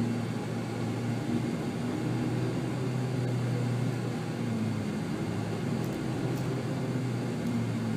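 Car engine and tyre noise heard from inside the cabin while driving: a steady low hum.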